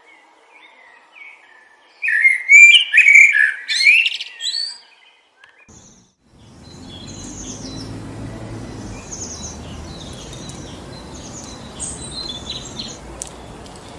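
A songbird sings loudly in quick chirps and warbles for about three seconds. After a brief silence, wind rushes steadily through forest trees, with lighter bird chirps over it.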